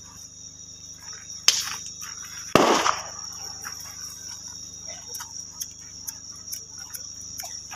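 Crickets chirping steadily, with small crackles from a burning bonfire. Two sharp bangs cut in about a second and a half in and again a second later, the second one fuller.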